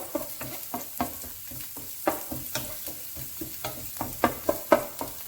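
Ginger and garlic frying in oil in a pan, with a steady sizzle, while a spatula stirs them with repeated scrapes and knocks against the pan.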